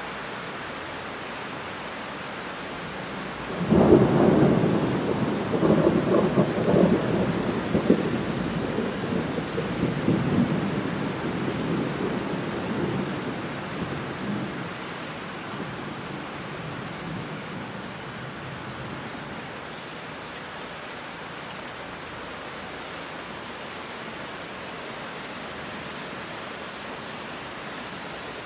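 Heavy rain falling steadily. About four seconds in, a sudden thunderclap breaks, then rolls on in waves of low thunder that fade away over the next ten seconds or so.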